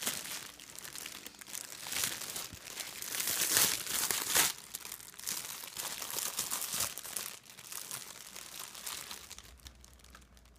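Foil wrapper of a giant Kinder egg crinkling and tearing as a toddler's hands pull it off, in irregular bursts that are loudest around the middle and die down near the end.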